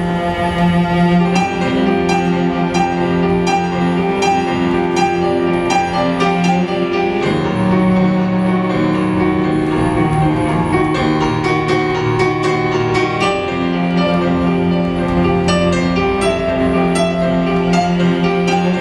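Slow instrumental music: held low chords that change every few seconds, with short bright notes scattered over them.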